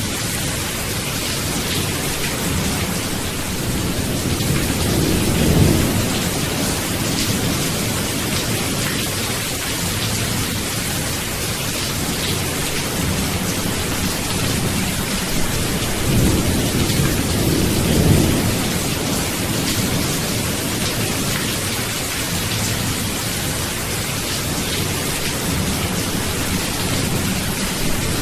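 Steady rain with rolls of low thunder, one about five seconds in and a longer one between sixteen and eighteen seconds.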